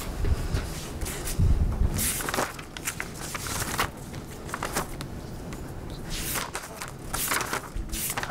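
A few heavy low thumps in the first two seconds as a person steps over to a table, then the scattered rustle of paper sheets being handled and shuffled.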